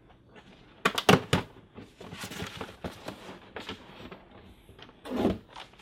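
Cardboard box being opened by hand: a quick cluster of sharp rips about a second in as the packing tape and flaps come free, then scraping and rustling of cardboard, with a short thump near the end.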